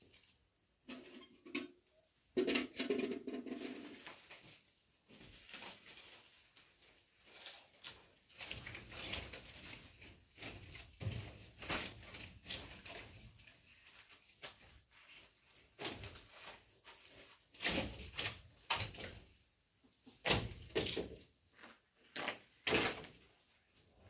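Stacked thin, dry flatbreads and a cloth being handled: irregular rustling and crinkling as the sheets are lifted, stacked and wrapped. A brief low humming sound comes about two seconds in.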